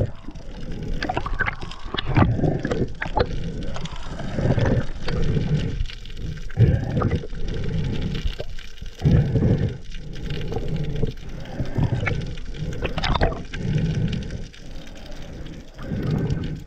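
Underwater audio from a diver's camera: water rushing and gurgling around the housing, swelling in uneven surges about once a second, with scattered small clicks.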